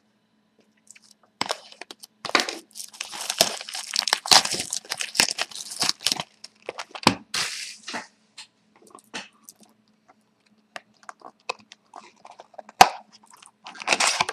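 The plastic wrap on a sealed trading card box crinkles and tears as the box is opened, followed by lighter rustling and clicks of card packs being handled, with one sharp click near the end.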